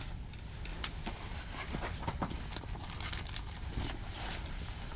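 Low steady hum with scattered faint clicks and rustles, like light handling noise.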